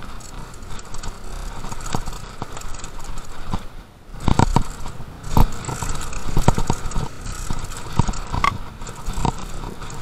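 Downhill mountain bike rattling down a rough trail: tyres on dirt and rock, with chain and suspension clatter and many sharp knocks. The sound dips briefly about four seconds in, then comes a run of loud knocks.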